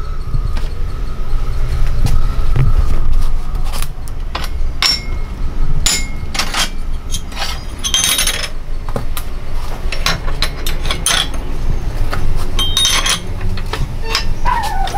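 Irregular metallic clinks and knocks of steel parts being handled and set down: a motorbike crankshaft assembly and steel support blocks being arranged on a hydraulic press bed. A steady low rumble runs underneath.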